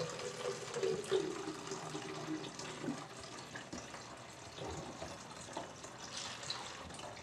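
Water pouring in a steady trickle from a large plastic water jug into an empty plastic bottle.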